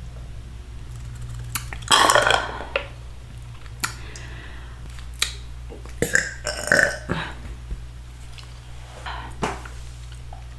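Close-miked burping: a loud burp about two seconds in and more burps around six to seven seconds in. Short wet mouth clicks and smacks come between them.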